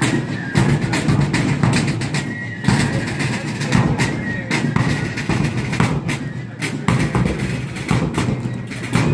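Military fife and drum corps playing a march while marching: side drums beating a dense rhythm with bass drum strokes, and fifes playing the tune.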